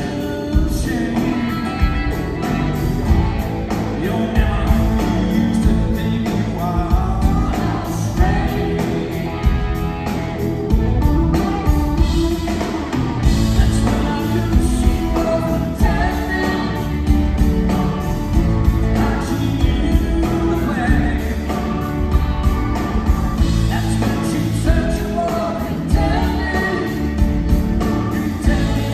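Live rock band playing a song: electric guitar, keyboards, bass and drum kit with a steady beat, and a lead vocal over them, heard from the audience in a theatre.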